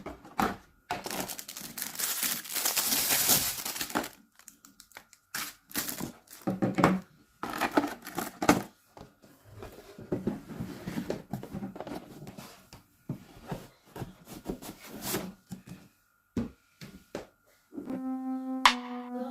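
Packaging being handled and torn open: crinkling and tearing, with a long rip a second or so in and scattered clicks and knocks. Near the end, background music with a held tone comes in.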